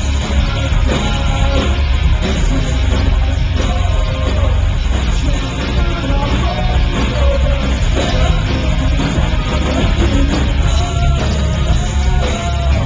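Rock band playing live: electric guitars, electric bass and drum kit, loud and full throughout, with a sung vocal line on top.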